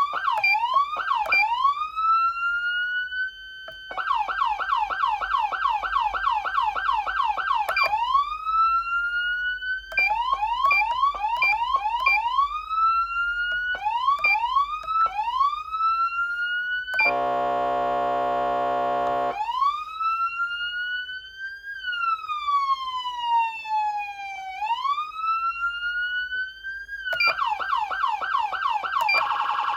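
Federal Signal Smart Siren Platinum SSP2000B electronic siren amplifier sounding its tones in turn. It switches between a fast yelp and long rising sweeps, gives a steady buzzy horn tone for about two seconds near the middle, then a slow wail that rises, falls and rises before returning to the fast yelp near the end.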